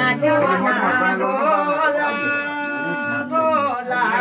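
Unaccompanied voices singing a chant-like song, with a long held note a little after halfway.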